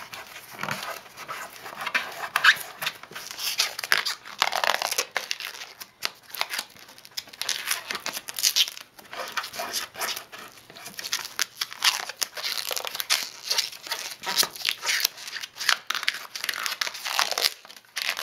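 Thin rubbery Plasti Dip coating being peeled and torn by hand off a dirt bike's plastic rear fender: a long string of irregular ripping and crinkling strokes.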